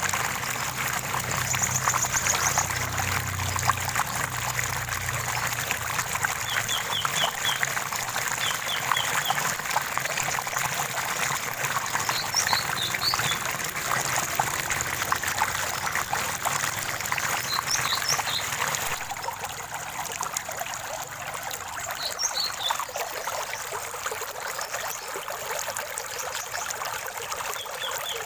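Shallow running water trickling and splashing steadily, with birds chirping now and then in quick runs of a few high notes. The water gets slightly quieter about two-thirds of the way through.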